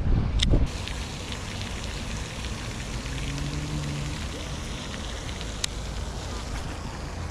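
Wind buffeting the microphone, loudest for the first half second or so, then a steady outdoor hiss with faint crackling and one sharp click about five and a half seconds in.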